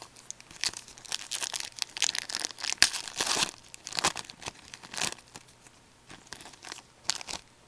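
A trading card pack's wrapper being torn open and handled, heard as a run of irregular rustles. They are densest in the first half, with a few more near the end as the cards come out.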